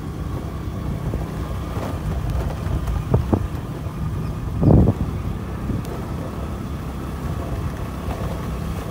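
Motorcycle engine running steadily while riding, with wind noise on the microphone. A short, louder burst comes about halfway through.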